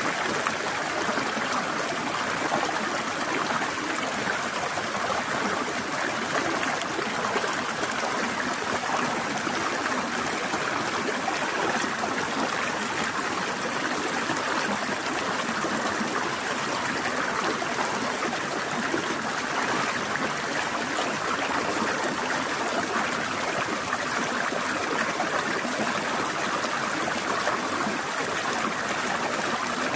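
Forest stream flowing and trickling over rocks, a steady, even rush of water with a gentle gurgle.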